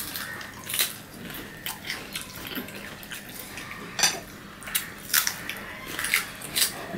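Crisp crunching and chewing of green amra (hog plum) fruit, a string of sharp, irregular crunches with the loudest about four seconds in.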